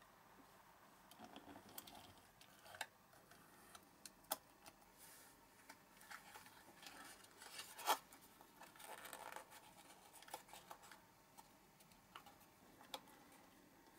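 Faint handling of a small thin cardboard box as its end flap is folded and tucked shut: light scratchy rustles and scattered soft clicks, with one sharper click just past halfway.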